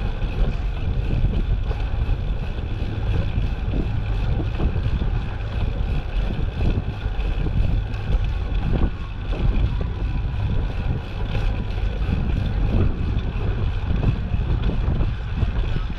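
Steady wind rumble on the microphone of a camera carried on a moving bicycle, swelling and easing slightly with small gusts.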